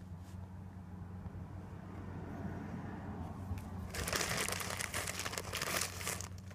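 Plastic bag crinkling and rustling for about two seconds, starting about four seconds in, as a bud of cannabis is fished out of it, with fainter rustling before; a steady low hum underneath.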